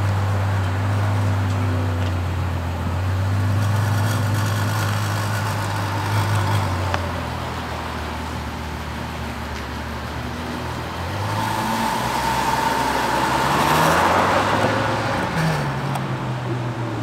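Ferrari FF's V12 engine idling with a steady low hum, then pulling away, rising in pitch twice as it accelerates, loudest a few seconds before the end.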